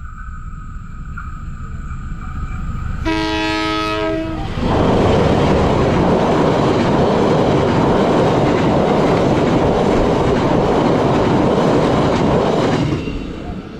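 Passenger train approaching and sounding one horn blast of several notes about three seconds in, lasting about a second and a half. Its carriages then cross a steel girder bridge with a loud, steady rumble for about eight seconds, which falls away near the end.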